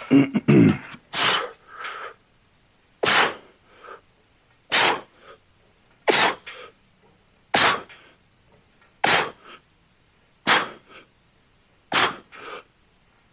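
A man's sharp, forceful exhales, eight in all, about one every second and a half, each followed by a shorter, fainter breath: the breathing of a lifter working through a set of repetitions. A brief voiced grunt comes right at the start.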